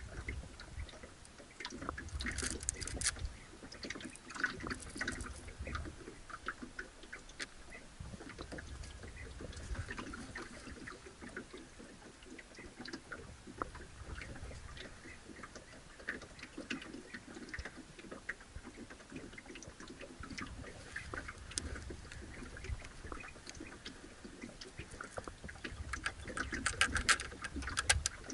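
Scattered clicks and light rattling from a baitcasting reel being handled, over gentle water lapping against the hull of a small boat. The clicks come in clusters, heaviest near the start and near the end.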